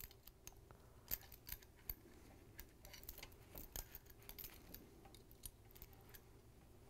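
Faint, scattered small clicks and light rubbing of handling: a new power cord's wires being fed by gloved hands through the plastic lower housing of a stand mixer.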